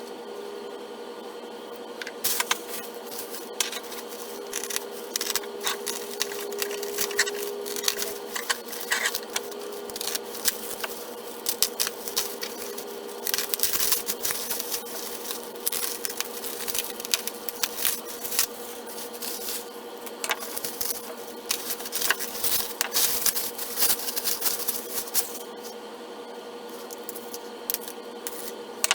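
Packaging being handled during an unboxing: irregular crinkling, rustling and clicking, dense from about two seconds in and easing briefly near the end, over a steady low hum.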